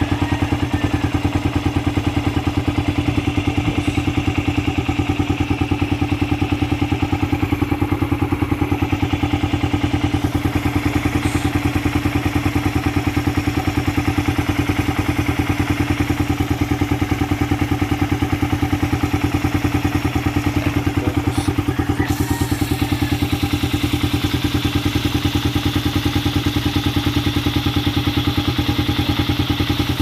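Suzuki Raider R150's single-cylinder four-stroke engine idling steadily through an exhaust with its catalytic converter removed, giving an even, unrevved putter.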